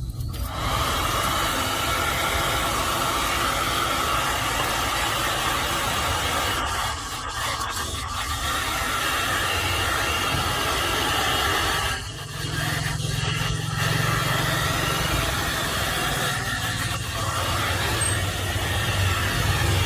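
Hair dryer running, its motor and fan blowing a steady rush of air over a low hum, dipping briefly three times.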